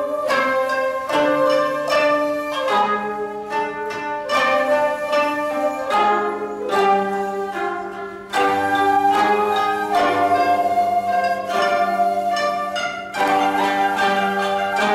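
Japanese koto ensemble, with high-register kotos and seventeen-string bass kotos, playing with shamisen in a traditional classical piece. Many quick plucked notes ring and decay. Low bass-koto notes come in about halfway through.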